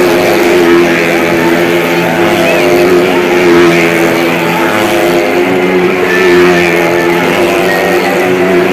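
Motorcycle engine running steadily at high revs as it circles the vertical wooden wall of a well-of-death pit, swelling and easing in loudness every few seconds.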